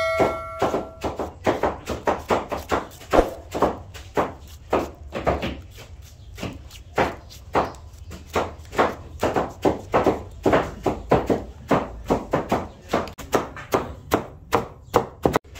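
Knife chopping vegetables on a wooden board: a steady run of sharp knocks, about three to four a second.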